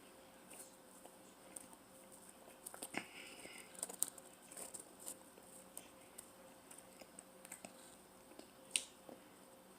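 Faint close-up eating sounds of a person chewing pizza: soft crackly chewing and small mouth clicks, busiest around three to five seconds in, with one sharper click near the end.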